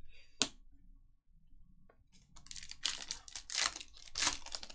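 A foil trading-card pack wrapper being crinkled and torn open, heard as several noisy bursts through the last two and a half seconds. A single sharp click comes about half a second in.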